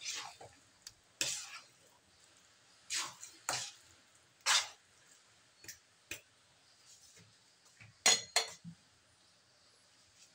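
Thick sticky rice mixture in a metal wok being worked with a spatula: irregular short wet scrapes and squelches, with a sharper metallic clink about eight seconds in.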